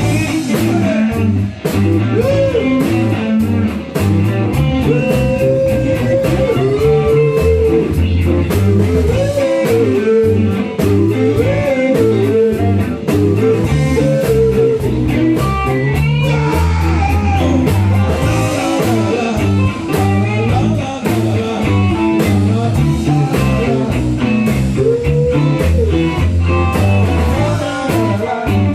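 Blues-rock music: a lead guitar plays a bending melody over bass and a steady drum beat.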